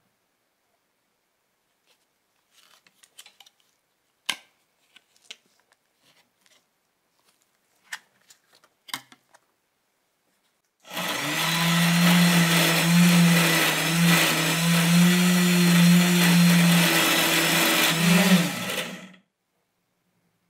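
Small handheld rotary tool's motor running steadily for about eight seconds, starting about eleven seconds in and stopping shortly before the end. Before it, scattered light clicks and taps of handling the tool and its attachments.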